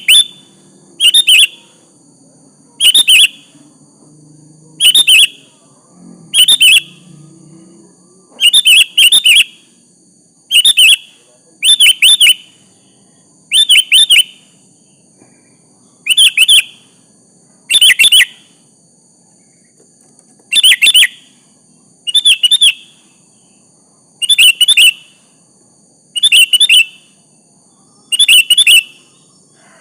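Sooty-headed bulbul (kutilang) calling: short, loud chirping phrases repeated every one to two seconds, sometimes two in quick succession.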